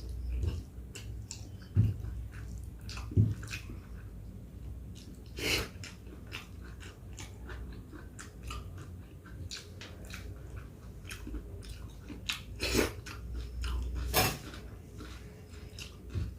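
A person chewing and eating rice with dal and vegetable curry, with many short wet mouth clicks and smacks. Two low thumps at about two and three seconds in.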